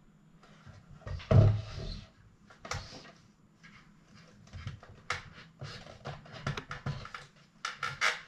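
White plastic shell of a Xiaomi Mi Smart projector being handled and worked apart by hand: a scrape and knock about a second in, then a run of light, sharp plastic clicks and rustles.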